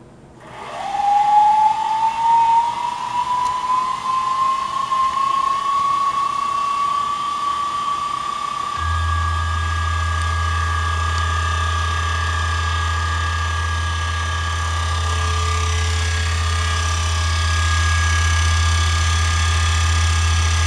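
Mikini 1610L CNC mill's spindle starting up, its whine rising in pitch over the first several seconds and then holding steady. About nine seconds in a steady low drone joins as the single-point carbide facing tool goes into the aluminium bar at 2000 RPM, cutting dry.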